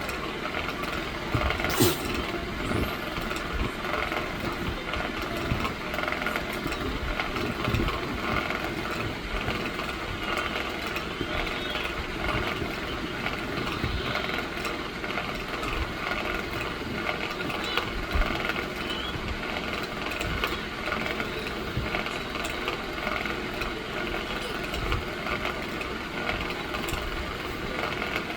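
Electric fan running steadily, its motor hum mixed with an uneven rattle and occasional sharp clicks, one about two seconds in and another about midway.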